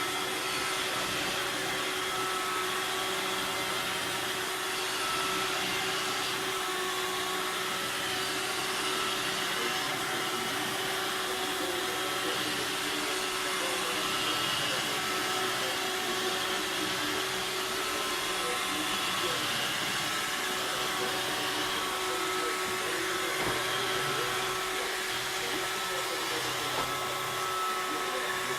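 Robot vacuum cleaner running: a steady whirring motor noise with a constant whine.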